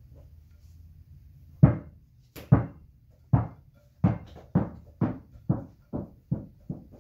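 Series of dull hollow knocks as a baby leopard tortoise's shell bumps against the rim of its water dish while it struggles to climb out. The knocks start about a second and a half in, the first the loudest, and come quicker and more often after about four seconds.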